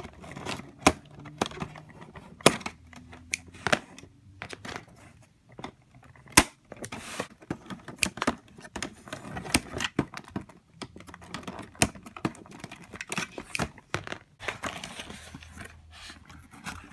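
A toy box and its packaging being opened by hand: many irregular sharp clicks and snaps of cardboard and plastic, with stretches of tearing and crinkling.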